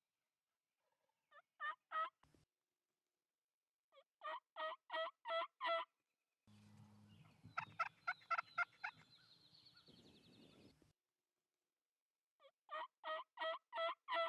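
Wild turkey calling in four bursts of quick, evenly spaced notes, about five notes to a burst. Through the third burst there is a steady background hiss and low hum.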